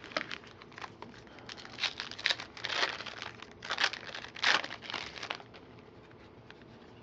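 Foil wrapper of a trading card pack crinkling as it is torn open, with the cards handled, in a string of rustling bursts that die down near the end.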